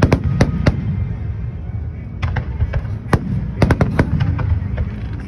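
Fireworks display: a quick run of sharp bangs from bursting shells in the first second, then another cluster of bangs about two to four seconds in, over a steady low rumble.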